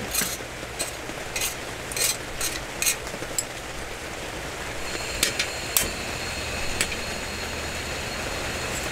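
Gopchang sizzling on a Skeppshult cast-iron pan as a steady hiss, with metal tongs clicking sharply against the pan as the pieces are turned: about six clicks in the first three seconds and a few more later.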